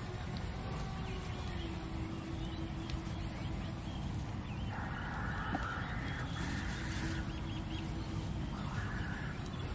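Outdoor field ambience with a steady low rumble and a faint steady hum. Waterfowl call for a couple of seconds about five seconds in and briefly again near the end, with small birds chirping.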